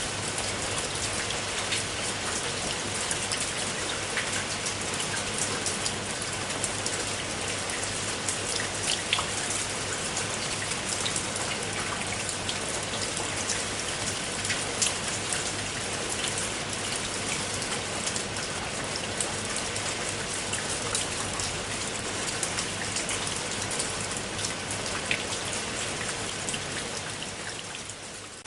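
Steady rain falling, with individual drops heard as many short ticks over an even hiss. The level sags briefly near the end.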